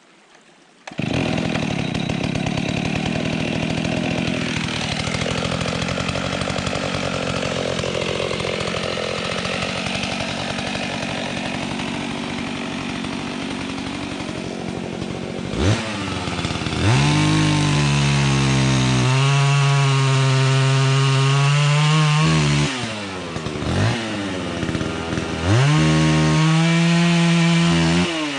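Husqvarna 61 two-stroke chainsaw cutting into a birch trunk, its pitch sagging under load. About halfway through it revs high and clean, drops back briefly, then revs high again.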